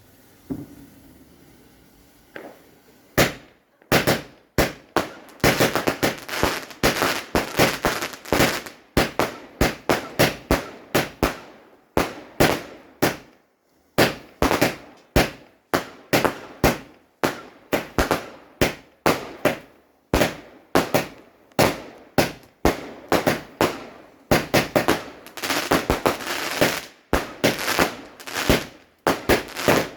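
Fireworks going off in a fast, dense string of sharp bangs and crackles, starting about three seconds in, with a couple of brief pauses.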